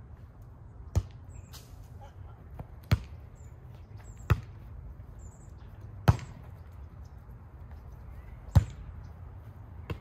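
A volleyball rally: sharp slaps of hands and forearms hitting a volleyball, about six contacts at uneven intervals over ten seconds.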